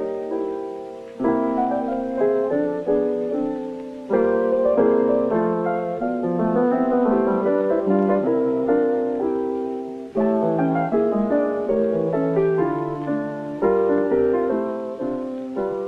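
Piano music: a tune of struck chords and melody notes, each note dying away, with short breaks about four and ten seconds in.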